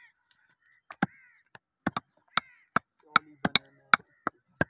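Heavy meat cleaver chopping beef and bone on a wooden tree-stump chopping block: about ten sharp, irregular chops starting about a second in, some coming in quick pairs.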